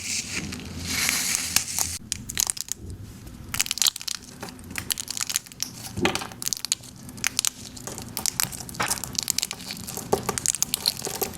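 Slime being squished and pressed, giving a dense, irregular run of crackling and crunching pops.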